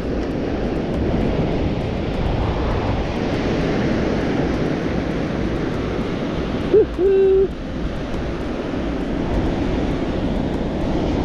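Strong wind buffeting the microphone over waves breaking on the beach, a steady rushing noise. About two-thirds of the way through, a person gives a short, held "woohoo" cheer.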